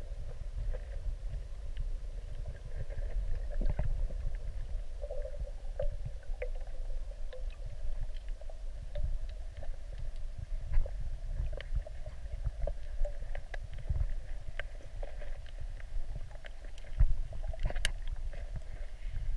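Underwater sound picked up by a camera submerged in a river: a low, muffled rumble of water moving around the housing, with scattered faint clicks and ticks and one sharper click near the end.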